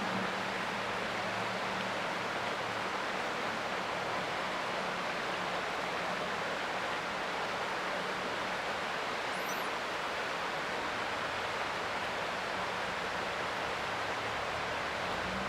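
Creek water flowing, a steady rushing wash.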